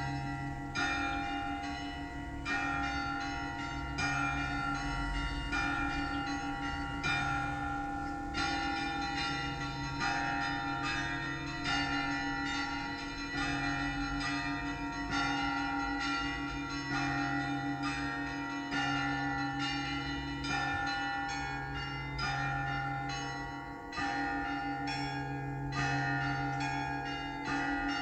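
Russian Orthodox cathedral bells ringing together: a deep bell strikes about every second and a half to two seconds while smaller, higher bells are struck quickly in a rhythmic pattern over it, their tones ringing on and overlapping.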